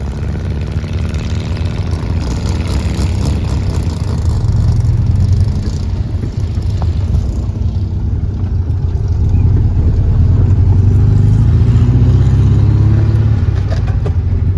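Car engine running while driving along, its note swelling louder about four seconds in and again around ten seconds in as it pulls harder.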